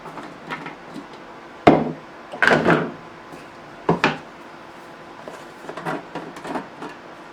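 Hard plastic knocks, clunks and clicks of Nutri Ninja Auto IQ blender parts being handled, as the bladed cup is set onto the motor base. The sharpest clunk comes about a second and a half in, a short clatter follows, another knock comes about four seconds in, and lighter clicks come after it.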